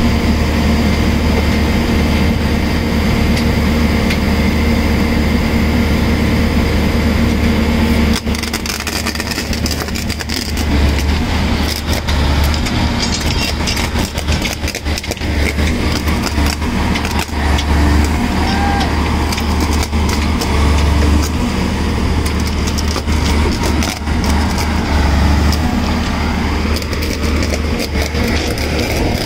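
Holland mobile flash butt rail welding machine running, a loud steady mechanical drone with a deep hum. From about 8 seconds in the sound turns rougher and uneven, with many short clicks and crackles over it.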